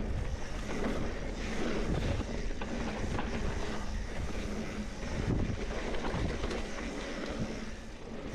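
Mountain bike rolling fast along a dirt singletrack: knobby tyres crunching over packed dirt and dry leaves, the bike rattling and knocking over bumps, with wind rumbling on the microphone.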